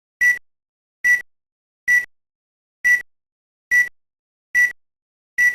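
Seven short, identical high-pitched electronic beeps, evenly spaced a little under a second apart, with silence between them.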